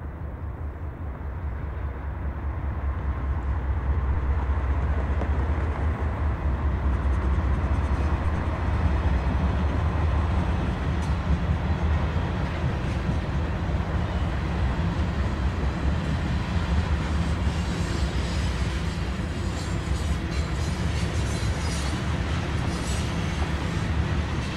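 Two GE Dash 9-44CW diesel locomotives, each with a 16-cylinder engine, pulling a freight train past. Their deep engine rumble builds over the first few seconds and then holds steady. Later the freight cars roll by, their wheels clicking and clattering on the rails.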